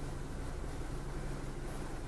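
Steady low hum inside a car's cabin: the engine running, with the air-conditioning fan blowing.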